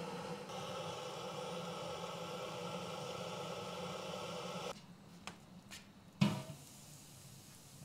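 Handheld butane torch hissing steadily as its flame is played on firewood in a barrel wood stove, stopping suddenly after about four and a half seconds. A few light clicks follow, then a single sharp metal clank with a short ring as a metal pot is set down on the stove top.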